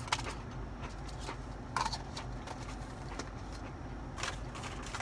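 Scattered small clicks and rustles of someone eating and handling a fast-food meal, with a brief louder rustle about two seconds in, over a low steady hum inside a car.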